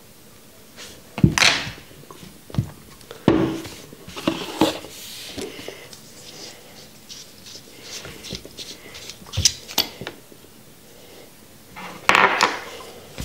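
Knocks, taps and light metallic clicks of a box-mod vape and its rebuildable dripping atomizer parts being handled and set down on a tabletop. The loudest knocks come about a second in, about three seconds in and again near the end.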